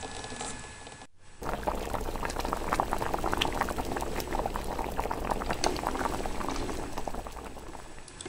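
Soup boiling in a small pot: dense bubbling and popping, louder from about a second and a half in.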